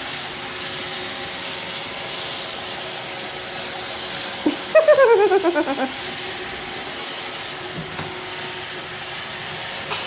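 Roomba robot vacuum running with a steady whir as it drives across a hardwood floor. About five seconds in, a person's voice breaks in briefly in a falling run of short pulses.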